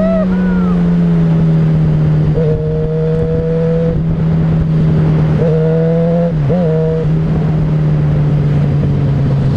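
Yamaha XJ6's 600 cc inline-four engine running at road speed under a rider, its pitch slowly sinking as the bike slows, with two brief revs about halfway through. Wind rushes over the microphone.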